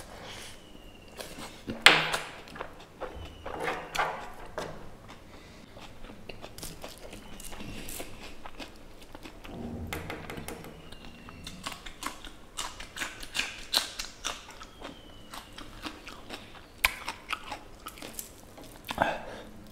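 Close-miked mouth sounds of a person chewing fatty pork curry and rice: wet smacks and clicks at irregular intervals, the loudest smack about two seconds in.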